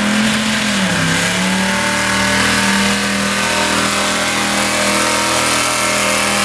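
1979 Ford F-250 mud truck's 472-cubic-inch big-block V8 running hard at high revs. The engine note dips briefly about a second in, then holds steady.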